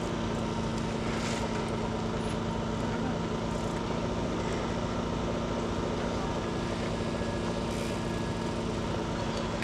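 A motor running steadily, giving a constant, unchanging hum with a few faint ticks over it.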